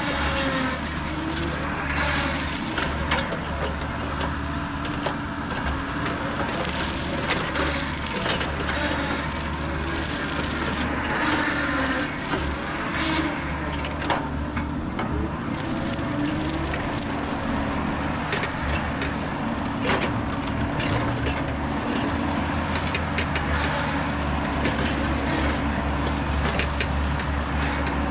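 Mini excavator's engine running steadily under load while its hydraulic Rut brush cutter head chops through brush, with scattered sharp cracks and snaps of woody stems breaking.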